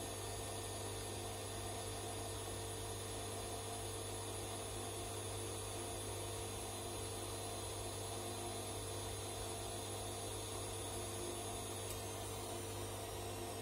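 Bosch Classixx 6 front-loading washing machine running its wash, the drum turning a sudsy load, with a steady hum. A faint high whine stops near the end.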